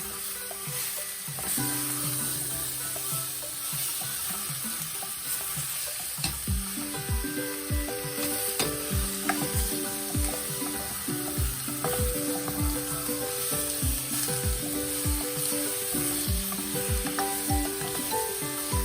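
Food sizzling as it fries in a pan, with occasional stirring, for chicken tinola. Background music with a steady beat joins about a third of the way in.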